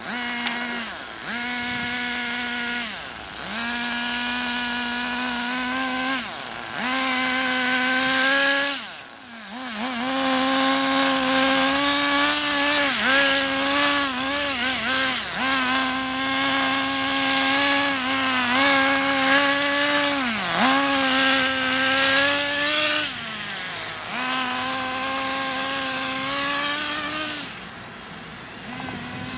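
Small nitro glow-fuel engine of a radio-controlled car running at high revs with a buzzing, high-pitched tone. The pitch dips sharply and picks up again several times as the throttle is lifted and reapplied. The sound drops briefly about a third of the way in and eases off lower near the end.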